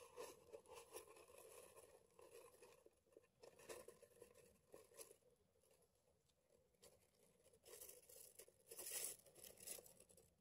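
Near silence with faint rustling and crackling, and a brief louder rustle about nine seconds in.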